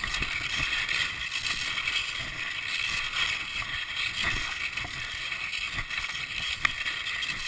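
Cross-country skis sliding and scraping over snow, a steady hiss, with irregular low thumps and a sharp click near the end.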